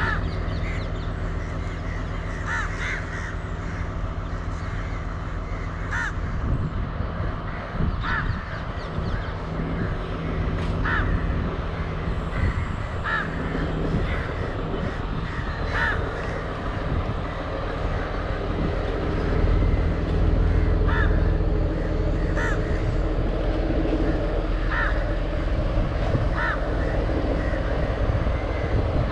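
Crows cawing again and again, roughly every two seconds, over the steady low hum of a diesel passenger power set's engine running at the track side. The engine hum grows a little louder about two-thirds of the way through.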